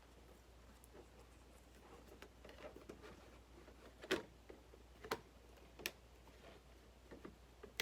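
Faint scratching and light ticks of a craft spatula working under cut craft foam to lift it from a sticky cutting mat, with a few sharper clicks, the loudest about four seconds in.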